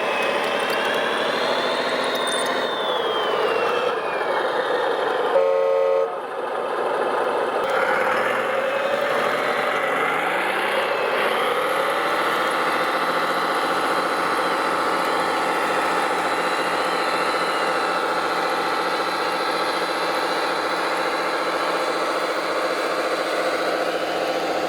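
Radio-controlled trucks running, their engine sound rising and falling in pitch, with a short horn blast about five and a half seconds in. After that, one rises in pitch and settles into a steady, evenly pulsing idle.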